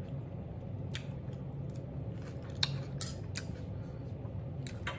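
Metal fork clicking against a glass plate a few separate times, the sharpest click about two and a half seconds in, over a steady low hum.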